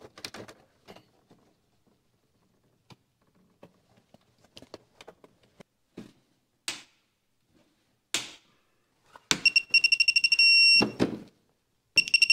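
Electronic torque screwdriver beeping as a breaker lug screw is tightened. About nine seconds in it gives a run of rapid high beeps that turn into one steady tone, the signal that the set torque has been reached, and it beeps again near the end. Before that there are only light clicks and knocks of the tool on the screw and panel.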